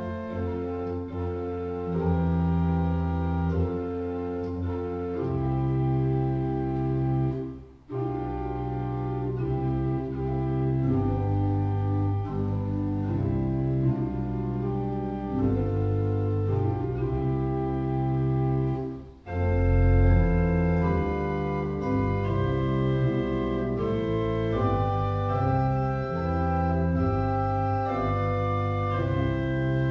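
Two-manual mechanical-action pipe organ built by Rudolf Böhm of Gotha, playing a chorale in sustained chords over a pedal bass. The music breaks off briefly twice between phrases.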